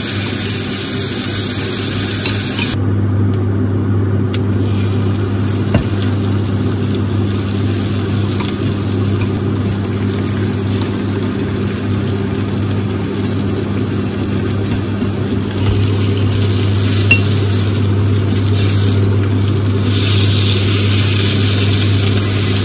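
Food sizzling in a nonstick frying pan. King oyster mushroom slices fry first, then beaten egg with enoki mushrooms is poured in and fries, over a steady low hum. A couple of light clicks of utensils against the pan.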